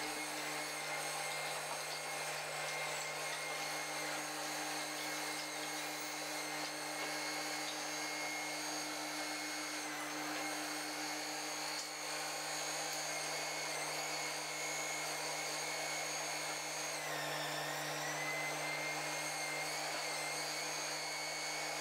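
Log bundle saw running with a steady high-pitched whine over a low hum; its pitch dips briefly and recovers about three-quarters of the way through.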